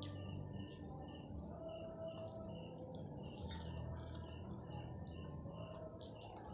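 Crickets chirping in the background: a steady high ringing note with a soft chirp repeating a few times a second. A few faint clicks and smacks of eating by hand sound over it.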